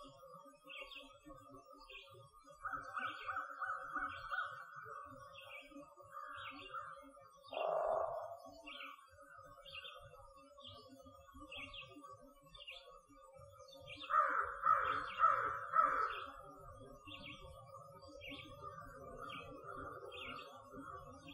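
Dawn forest bird chorus: a songbird repeats a short high note about every 0.7 s. Crows caw over it, once loudly about 8 s in and in a run of about four caws around 14 to 16 s.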